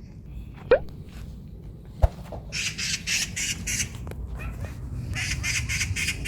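A bird outside the window gives runs of harsh, rapid chattering calls, about five notes a second, in two runs, the second beginning about five seconds in. A short rising squeak comes near the start and a sharp click about two seconds in.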